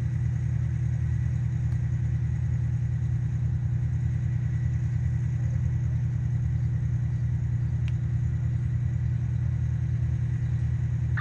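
An engine idling steadily close to the microphone, a low, even, unchanging engine sound.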